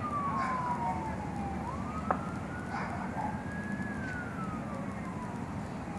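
An emergency vehicle siren wailing in slow rising and falling sweeps, each about four seconds long, over a low steady rumble. A single sharp pop about two seconds in.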